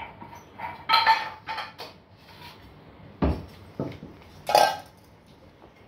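Long-coat German shepherd puppies scuffling on a hard marble floor: several short, sharp knocks and clatters, the loudest coming in two bursts about a second in and near the end.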